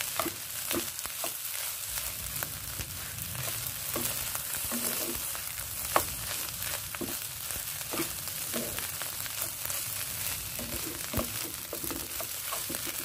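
Rice and egg frying in a pan for sinangag, with a steady sizzle and the pan being stirred. Scattered utensil clicks and scrapes against the pan sound throughout.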